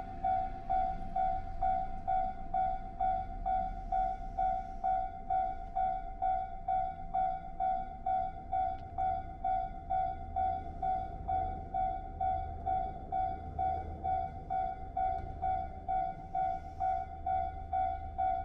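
Japanese railway level-crossing warning bell ringing, a repeated electronic 'kan-kan' tone about twice a second, with a low rumble underneath. It is the signal that the crossing is closed for an approaching train.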